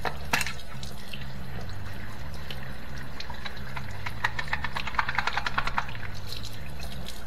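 Water splashing and dripping with many small clicks, densest about two-thirds of the way through, as a clogged dishwasher rinse-aid dispenser is rinsed and picked clean of crusted deposits. Music plays underneath with a stepping bass line.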